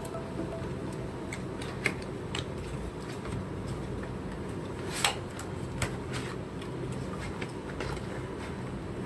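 Scattered clicks, taps and scrapes of hands handling and working open a taped cardboard product box, the sharpest click about five seconds in, over a steady low hum.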